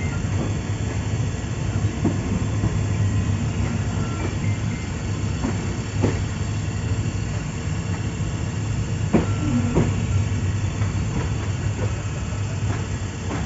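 Passenger train rolling slowly out of a station: a steady low rumble with irregular sharp clacks of the wheels over rail joints and points, the loudest about nine seconds in.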